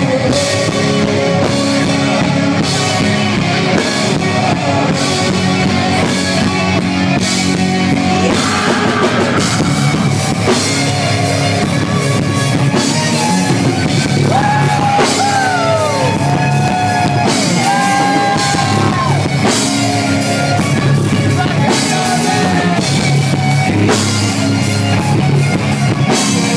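Live rock band playing at full volume: electric guitar over a drum kit, with a few notes sliding up and down in pitch about halfway through.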